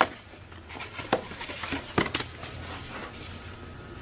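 Cardboard box insert and paper booklets being handled: rustling with several sharp taps and knocks, near the start and about one and two seconds in.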